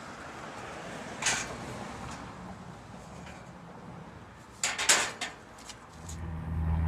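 Knocks and clanks of steel barbecue-frame parts being handled: a single knock about a second in and a quick cluster of three or four near the middle. A low steady hum comes up near the end.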